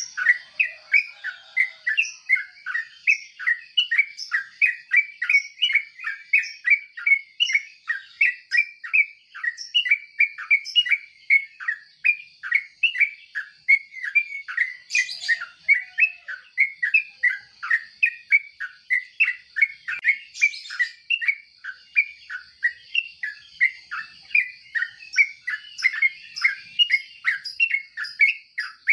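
Yellow-vented bulbul calling: a fast, unbroken run of short chirping notes, about three a second.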